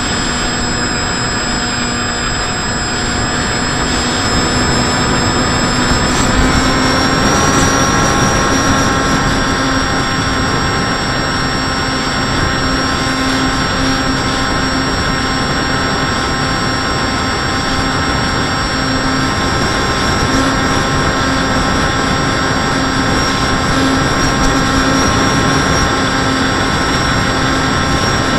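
Motor and propellers of an FPV model aircraft, heard from an on-board camera, running with a steady whine over a rush of air. The pitch steps up about six or seven seconds in as the throttle is raised, then holds.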